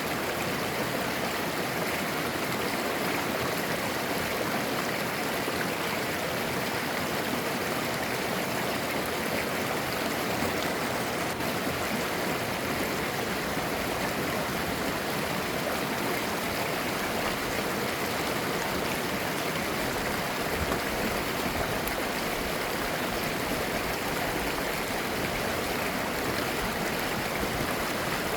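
Mountain stream flowing over rocks, a steady babbling and gurgling rush of water.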